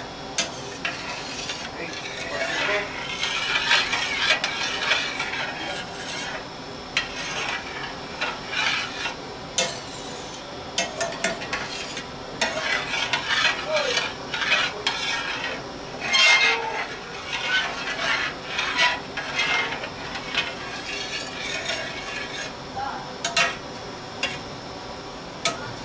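A metal utensil stirring cream sauce in a stainless steel pan, scraping and clinking irregularly against the bottom and sides.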